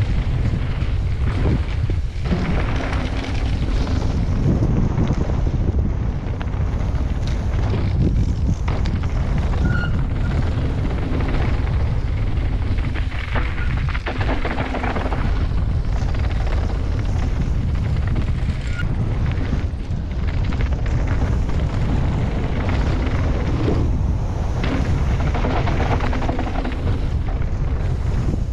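Wind buffeting the microphone of an action camera on a mountain bike descending a dirt trail, a steady low rumble with the knocks and rattle of the bike over bumps.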